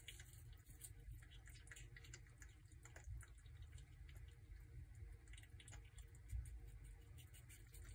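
Prairie dog chewing a piece of watermelon: faint, wet smacking and clicking bites, scattered irregularly.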